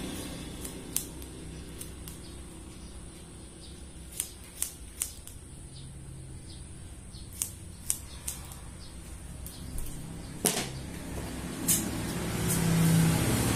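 Barber's scissors snipping hair, a scattering of sharp single snips a second or so apart, over a low steady hum that grows louder near the end.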